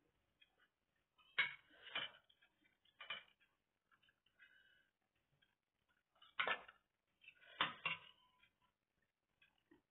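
Metal spoon and fork clinking against a bowl of rice while eating: a handful of sharp, separate clinks in two groups, one a little after the start and one in the second half.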